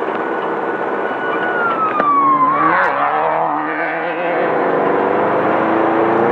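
Air-cooled 1600 cc VW flat-four engine of a Class 5/1600 desert race Bug, heard from inside the car over road noise. The revs fall for about two seconds, go rough and jumbled for a moment around three seconds in, then climb steadily again.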